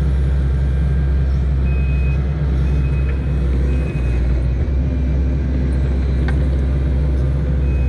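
Kubota SVL90-2 compact track loader's diesel engine running steadily as the machine grades dirt with its bucket. A faint high beep repeats about once a second through the middle of the stretch.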